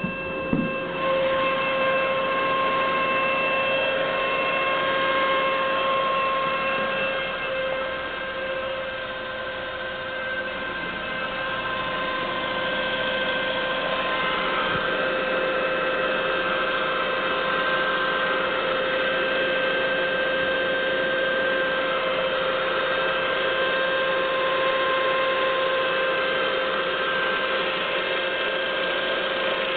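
1999 Saab 9-5 2.0T turbo four-cylinder engine running with a steady high-pitched whine over the engine noise. The whine comes while the engine is cold and is the sign of a thick build-up of oil sludge in the sump and a clogged oil strainer/pickup.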